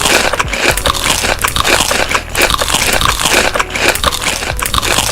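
Close-miked crunchy biting and chewing of food, a loud continuous run of sharp crackles and crunches.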